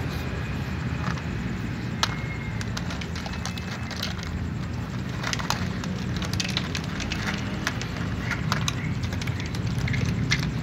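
Two cats chewing dry kibble: irregular crisp crunches and clicks, close up, over a steady low hum.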